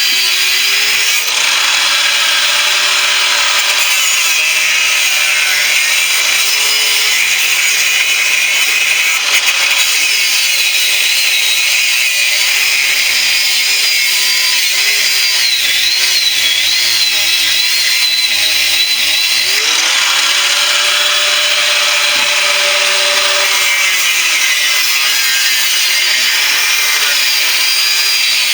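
Angle grinder with a cut-off disc cutting through the steel shell of an air-conditioner compressor: a continuous high grinding with the motor's pitch wavering as the disc bites into the metal.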